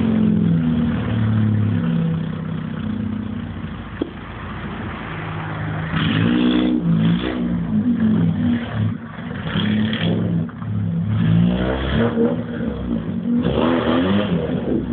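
Engine of a car under construction as a dragster, running steadily at first and then revved hard again and again from about six seconds in, its pitch rising and falling with each blip. A single sharp click about four seconds in.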